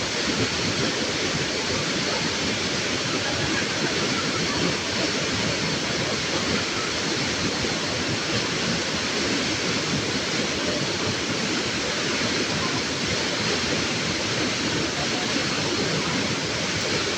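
Steady rushing water, an even roar that holds level without swells or breaks.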